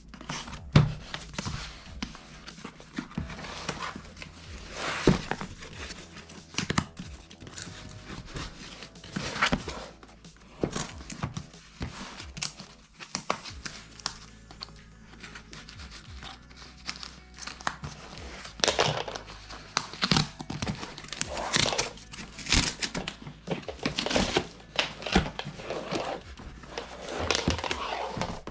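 Packaging being unwrapped and opened, with irregular crinkling and tearing sounds throughout, over background music.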